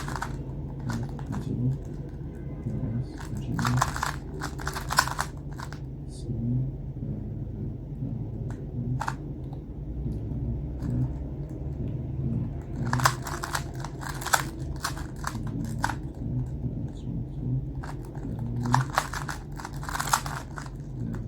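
Plastic 2x2 Rubik's cube being twisted by hand, its layers clicking in quick runs of turns with pauses between, three main runs over a steady low hum.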